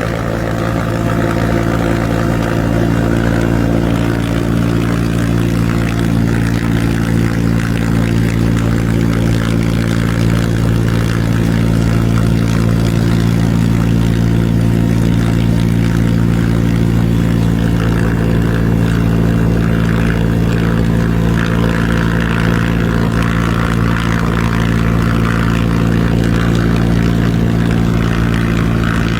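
A heavy engine running steadily, a constant drone of even low tones that holds unchanged throughout.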